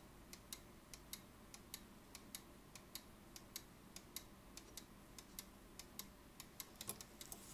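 Faint, steady ticking of a German chiming mantle clock movement's escapement, the pallets releasing the escape wheel as the pendulum swings, about three ticks a second.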